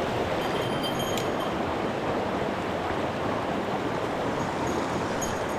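Mountain stream water rushing steadily over rocks, with a few faint high-pitched chirps about a second in and again near the end.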